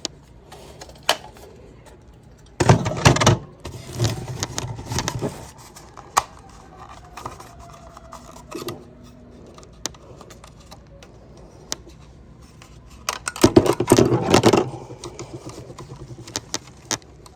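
Hands handling a plastic smoke alarm while taking its battery out: scattered clicks and knocks, with two louder bouts of scraping and rustling, about three seconds in and again around thirteen to fifteen seconds in.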